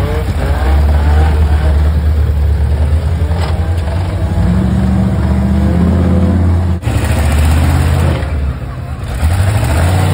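Off-road rock crawler's engine running hard and revving in steps as it works over rocks, with voices faintly behind it.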